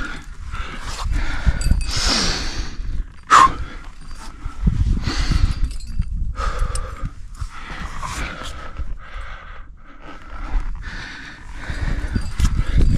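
A climber breathing hard in repeated heavy breaths over a low rumble, with one sharp metallic click about three and a half seconds in.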